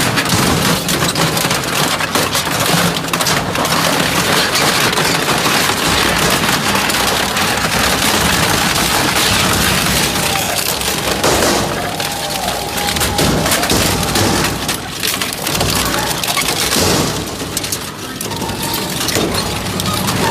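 Industrial shredder crushing scrap: a loud, steady stream of crackling, cracking and crunching.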